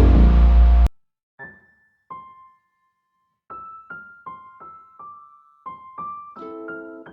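Loud background music cuts off abruptly about a second in. After a short gap a soft piano melody starts with single, spaced notes and builds into chords near the end.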